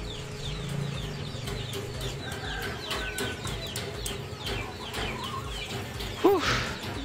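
Chickens clucking and peeping: a steady run of short, high, falling chirps about three a second, with one louder call near the end.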